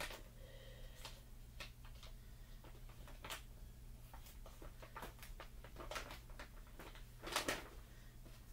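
Plastic bag of cheese tortellini crinkling as it is handled, in scattered short rustles, with a louder crinkle about seven seconds in.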